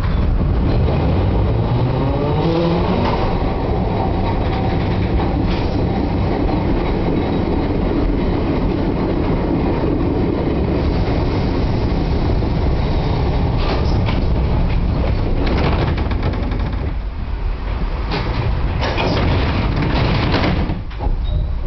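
Old Milan tram running, heard from inside the car: a steady rumble of wheels on rails, a motor whine rising in pitch about two seconds in as it speeds up, and scattered clacks as the wheels cross rail joints and points.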